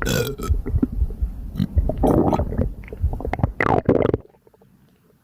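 Human stomach gurgling and rumbling while digesting a light breakfast: a dense run of loud, irregular bubbling gurgles, some sliding up or down in pitch, that stops suddenly about four seconds in.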